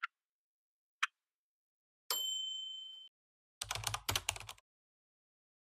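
Countdown-timer sound effects: a clock ticking once a second, then a chime about two seconds in that rings and fades over a second, marking the end of the preparation time, then a short rattling burst of clicks lasting about a second.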